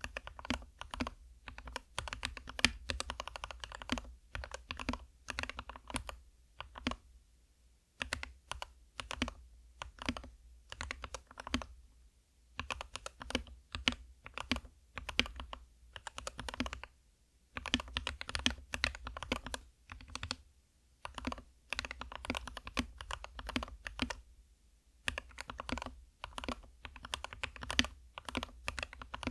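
SK61 mechanical keyboard with lubed Gateron optical red linear switches being typed on quickly. The keystrokes come in runs of fast clicks, broken by short pauses every few seconds.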